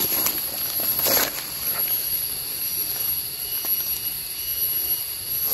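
Steady high-pitched insect chorus droning in the forest, with a brief rustle of dry leaf litter about a second in.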